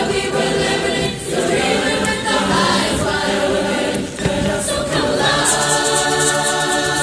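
Youth barbershop chorus singing a cappella in close harmony, the voices settling onto a long held chord in the last couple of seconds.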